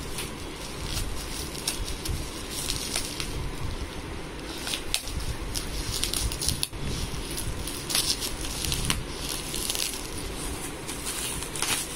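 Gift packaging being opened by hand: wrapping rustling and crinkling, with many short, sharp crackles throughout.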